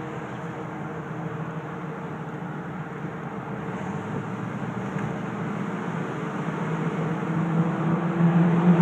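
Car engine and road noise heard from inside a moving car, steady at first, growing louder in the last couple of seconds as the car passes under an overpass.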